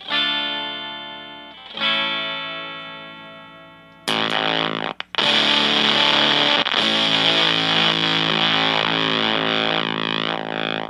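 Fender Stratocaster through a gated silicon fuzz pedal (Full Analog Atomic Fuzz) into a Fender Blues Junior amp. Two distorted chords ring out and fade, then a dense sustained fuzzy riff starts about four seconds in. It drops out abruptly for a moment, wavers in pitch with bends near the end, and cuts off suddenly.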